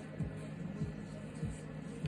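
Background music with a steady beat: a deep kick drum that drops in pitch, about three times every two seconds, over a sustained bass line.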